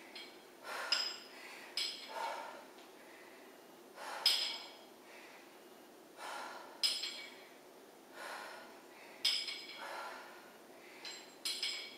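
A woman breathing hard through repeated dumbbell sumo squats, with a sharp exhale about every two to two and a half seconds. Each exhale comes with a short click or clink, likely from the dumbbell.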